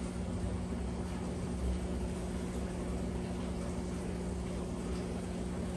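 A steady low mechanical hum of room background noise, unchanging throughout, with no distinct handling sounds.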